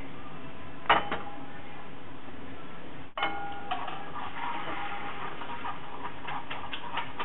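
A pan of olive oil and pasta cooking water sizzling faintly on a gas hob, with scattered ticks and a sharp click about a second in.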